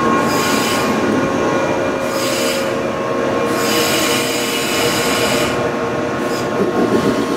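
JR Kyushu 415 series electric train running past at close range: steady running noise with a few held tones, and a higher hiss that swells and fades three times.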